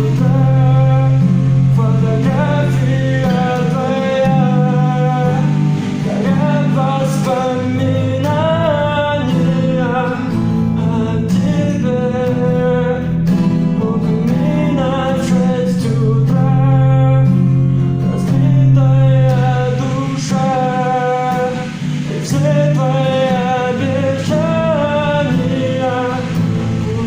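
A voice singing a Russian pop song over acoustic guitar accompaniment.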